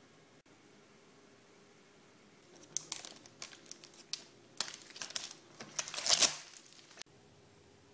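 Handling noise: irregular rustling and crackling with sharp clicks for about four seconds, loudest near the end.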